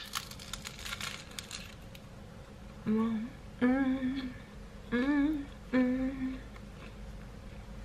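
A woman humming four short notes with her mouth closed while eating, each note about half a second long with a wavering pitch, starting about three seconds in. Faint crunching from a bite of the snack comes before them.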